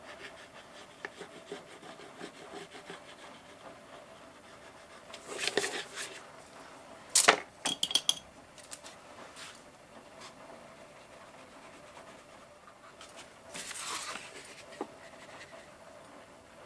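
Light handling sounds on a craft desk: a pastel stick scratching on paper, then the paper sheet sliding and being turned, with a sharp tap about seven seconds in, a few smaller clicks after it, and another rustle near the end.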